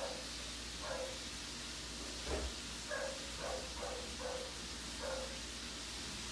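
KDK industrial ceiling fan running with a steady airy hiss, while a dog barks in the background: about eight short barks, irregularly spaced.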